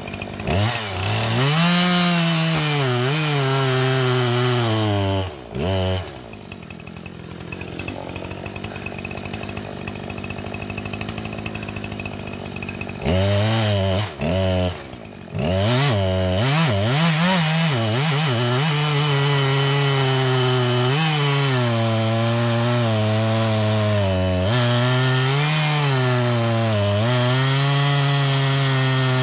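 McCulloch CS50S two-stroke chainsaw cutting through a log at full throttle, its pitch dipping and rising as the chain bogs under load. About six seconds in it drops back to a quieter, lower running for several seconds. It revs up again about thirteen seconds in and cuts on to the end.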